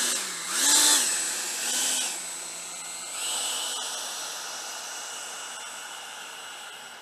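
Electric ducted fans of an 8-cell Freewing F-4 Phantom RC jet whining at power, the pitch swinging up and down three times as the throttle is blipped, then held steady as the jet rolls away down the runway, fading slowly.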